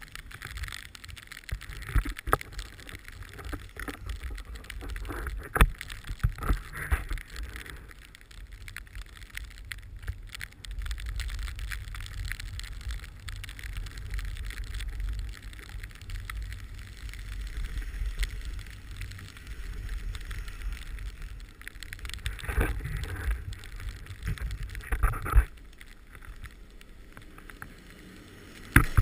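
Wind buffeting the microphone of a pole-mounted action camera on an open chairlift, with scattered knocks from handling the camera. A cluster of louder metal clatters between about 22 and 25 seconds in as the chair's safety bar is raised.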